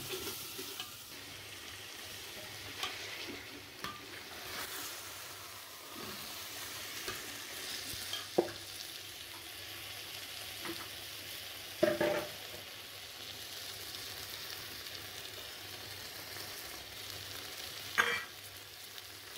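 Chicken pieces frying in a thick onion masala, sizzling steadily while a metal slotted spatula stirs them in a stainless steel pot. A few sharp knocks of the spatula on the pot, the clearest about 8, 12 and 18 seconds in.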